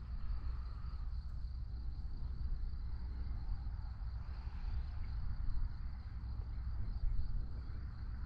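Outdoor background: a steady low rumble with a thin, steady high insect drone over it.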